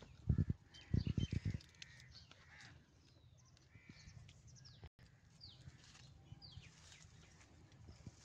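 A quick run of hollow knocks in the first second and a half as green citrus fruits are put into a plastic toy dump truck, then birds chirping and calling, with a couple of falling whistles near the middle.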